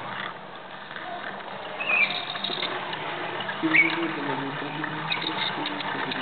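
Hand-cranked Wimshurst electrostatic machine running, its turning discs and brushes making a continuous mechanical whirring and clicking as it charges the needle.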